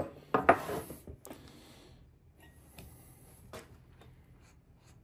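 Hand work on a chainsaw's clutch side: a sharp knock at the start and a short scraping rattle about half a second in, then scattered light clicks and taps of tools and parts being handled.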